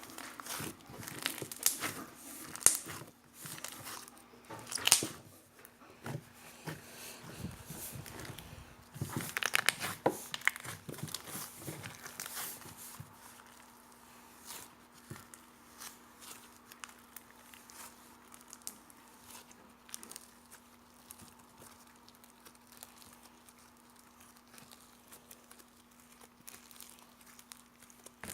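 Jiggly slime being squeezed and stretched by hand, giving dense crackling and popping clicks. The clicking is busiest and loudest for the first dozen seconds, then thins to scattered small pops. A faint steady hum runs underneath.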